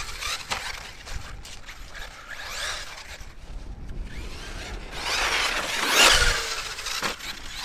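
Arrma Kraton EXB 1/8-scale electric RC truck on a 6S battery being driven, its brushless motor whining up and down in pitch as the throttle is worked. The whine swells about two and a half seconds in and is loudest about six seconds in.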